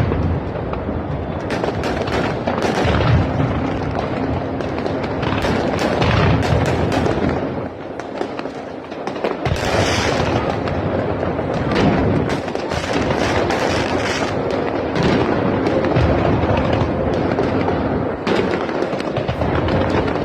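New Year's fireworks going off in a dense, continuous barrage of bangs and crackles, with a brief lull about eight seconds in. Music plays underneath.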